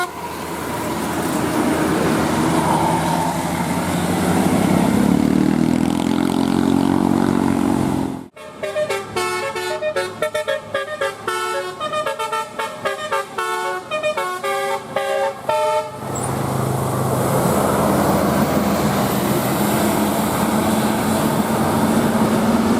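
A bus's engine runs and rises in pitch. Then, from about 8 seconds in, a telolet horn plays a quick tune of short notes for about 8 seconds. After that the bus's engine and road noise return, with a low tone rising slowly near the end.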